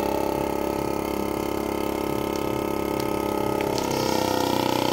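Potane vacuum sealer's pump running steadily as it draws the air out of a bag of stuffed sausage. Its tone shifts about four seconds in as the bag pulls tight around the sausage.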